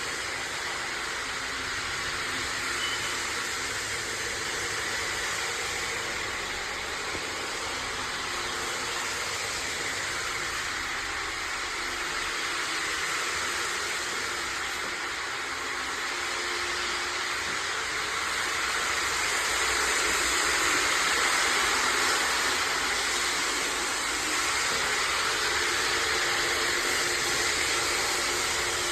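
A machine running steadily with a constant hiss, getting a little louder about two-thirds of the way through.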